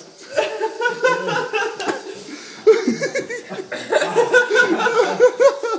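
People laughing hard without a break, in quick repeated bursts of 'ha'.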